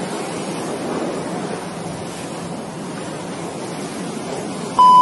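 A steady hiss of background noise, then near the end a loud, steady electronic beep at a single pitch begins.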